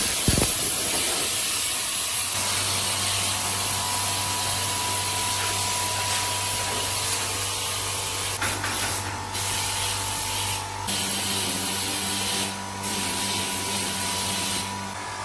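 Steady hissing spray over a low motor hum. The hiss cuts out briefly three or four times in the second half.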